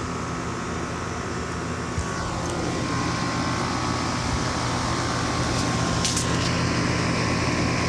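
Steady mechanical hum of a running machine, with a constant low drone and a faint high steady tone, getting slightly louder a couple of seconds in; a couple of brief clicks, one about six seconds in.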